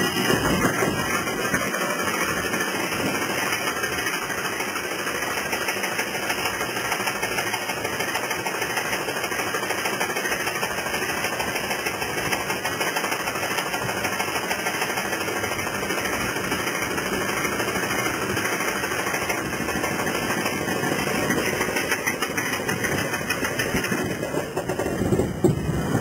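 Roller coaster chain lift hauling the car up the lift hill: a steady, rapid mechanical clatter of chain and track clicks, heard from inside the car. Near the end it dips and turns uneven as the car crests the top.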